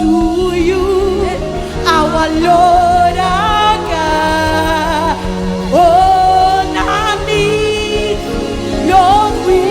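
Live gospel worship music: a singer holding long, wavering notes over steady band accompaniment.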